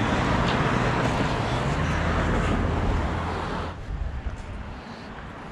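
Road traffic going past close by: a steady rush of tyre and engine noise that drops off sharply nearly four seconds in.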